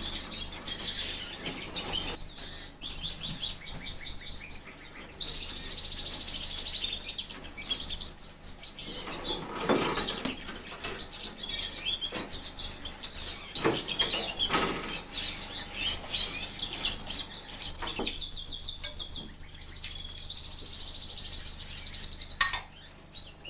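Fife Fancy canaries singing: rapid rolling trills and chirps, with long even trills about five seconds in and again near the end. A few short knocks come among the song.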